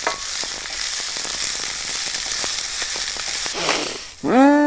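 Chopped onion sizzling and crackling in hot oil in a frying pan as it is stirred with a wooden spoon; the sizzle cuts off about three and a half seconds in. Near the end a voice hums a loud 'mmm' that rises and falls in pitch.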